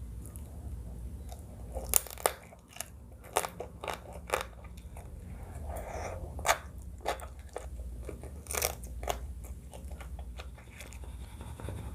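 Close-miked eating of crab papaya salad: a series of sharp, irregular crunchy bites with chewing between them, over a steady low hum.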